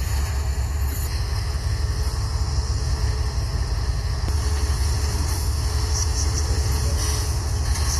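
Diesel locomotive rumbling steadily as the train creeps along at a crawl, nearly stopped.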